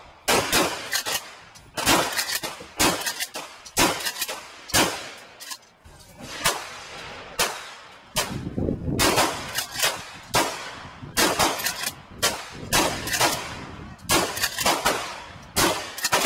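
A long string of gunshots, roughly two a second, each trailing off in an echo.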